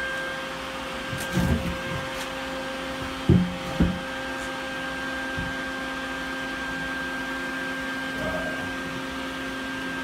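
Bee vacuum's motor running with a steady hum. A few dull knocks break in, the two loudest just before the four-second mark.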